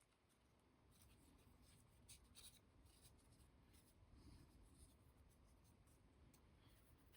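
Near silence: faint room tone with a few light clicks and rubs from small wooden kit parts being handled at the bench.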